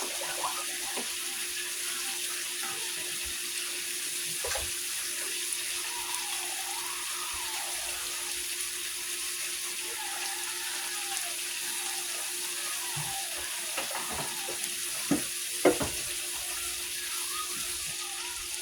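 Ribeye steak sizzling steadily in butter in a hot pan, with a steady hum underneath and a few knocks of a utensil against the pan, the loudest about three quarters of the way through.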